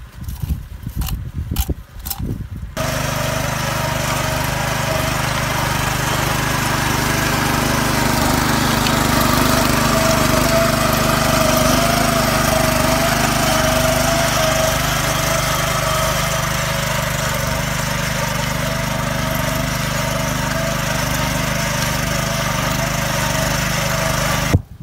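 A few knocks and scrapes of hand hoes in the soil, then, a little under three seconds in, a walk-behind cultivator's small petrol engine running steadily under load as its rotor throws soil up onto the potato rows for hilling.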